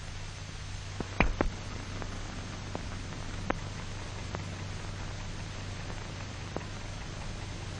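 Hiss and a steady low hum from an old optical film soundtrack, with a few scattered clicks and pops, the loudest about a second in.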